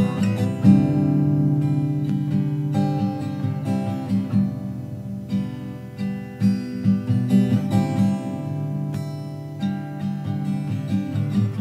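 Acoustic guitar background music, plucked and strummed chords.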